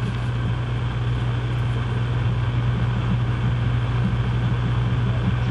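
A steady low hum with a faint hiss over it, unchanging throughout.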